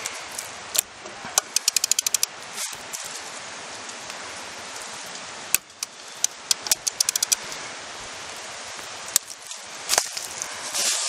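Socket ratchet clicking in two quick runs of about ten clicks as the trailer's axle spindle nut is snugged down over the freshly greased wheel bearing, with a few single knocks in between.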